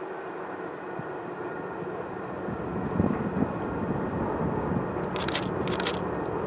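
Diesel locomotive with the train's distributed power, a GE AC4400CW-type unit, running as it rolls past with its train, a steady low drone growing louder about halfway through. There are two short hisses near the end.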